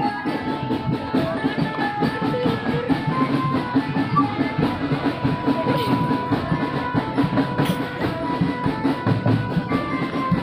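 Marching drum band playing dense, fast drumming, with held horn notes over it from a telolet basuri horn used as part of the band.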